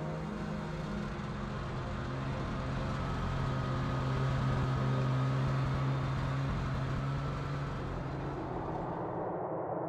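A motor vehicle passing: a steady low engine hum with a wash of road noise that swells toward the middle and fades away near the end.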